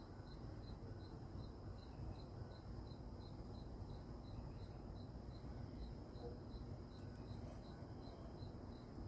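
A cricket chirping steadily at night, with short, high chirps repeating about three times a second.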